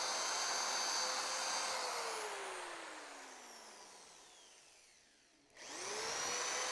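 Corded electric drill pre-drilling pilot holes into wooden stretchers: the motor runs at full speed, winds down with a falling whine over about three seconds after the trigger is released, then spins back up to speed about five and a half seconds in.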